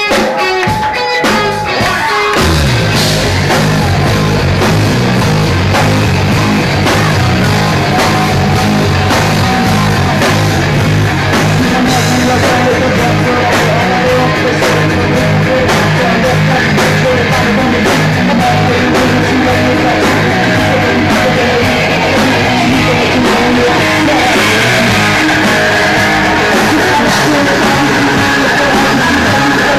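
Live rock band playing loud, with a female lead singer, distorted electric guitars and drums; a few separate hits open, and the full band comes in about two seconds in. The recording is overloaded and distorted.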